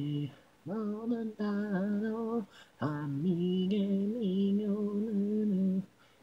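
Unaccompanied female vocals from an isolated a cappella track of a Japanese pop song, singing two phrases of the melody with a short break about two and a half seconds in.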